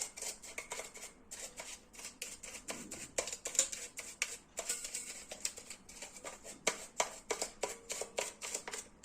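An old toothbrush scrubbing corrosion from the battery leakage out of a plastic remote's battery compartment: quick, irregular scratchy strokes, several a second.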